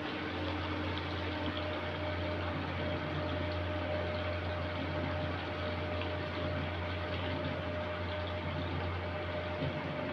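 Bele fish frying in hot oil in a kadai on a gas stove: a steady, even sizzle over a constant low hum.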